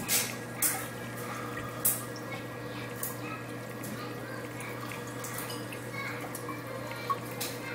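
Water trickling and dripping in a running saltwater reef aquarium, with short sharp splashes every second or so over a steady low hum of the tank's pumps.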